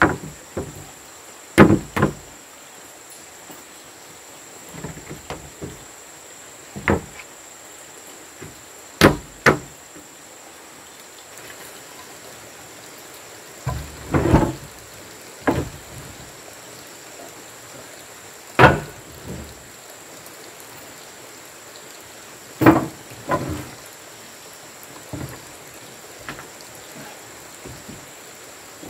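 Wooden boards knocking and clunking against a wooden plank box as they are laid and fitted: about a dozen irregular knocks, some in quick pairs.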